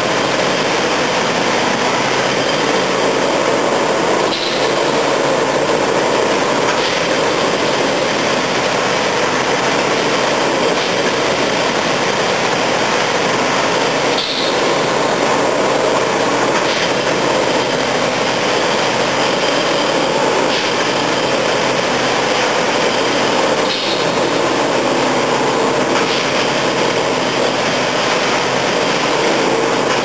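Engine of a Plasser & Theurer track-maintenance machine running steadily.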